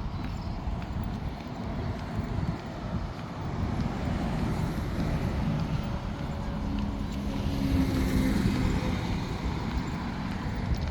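Waves washing over a beach of round pebbles (mongdol), a steady rushing surf with the stones clattering. A low hum joins briefly in the second half.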